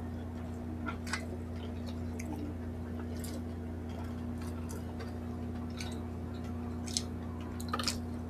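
Close-up mouth sounds of people eating grilled pork belly and rice by hand: scattered wet chewing smacks and lip clicks, with a small cluster of them near the end. A steady low hum runs underneath.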